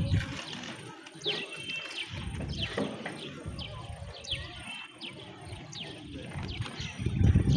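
Small birds calling over and over, each call a short high note falling in pitch, with a low rumble on the microphone at the start and again near the end.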